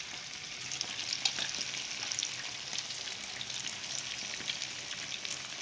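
Marinated chicken pieces deep-frying in hot oil: a steady sizzle with scattered crackling pops.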